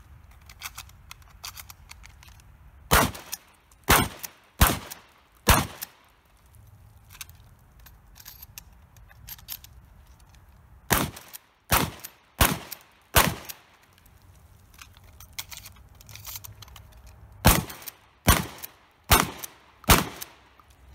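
Shotgun fired in three quick strings of four shots, each shot a little under a second after the last. Between strings there are faint clicks as shells are loaded four at a time.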